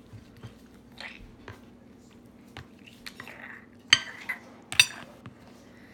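An eating utensil tapping and scraping in a dish of TV-dinner spaghetti and meatballs: a few light clicks, then two sharp ringing clinks about four and five seconds in, over a steady low hum.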